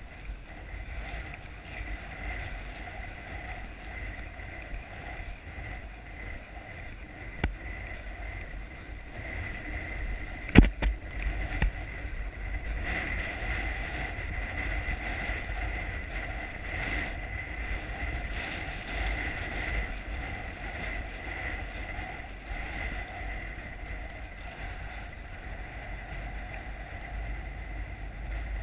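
Wind buffeting a rider's head-mounted camera microphone as the horse moves along, a steady low rumble, broken by two sharp knocks, the louder about ten and a half seconds in.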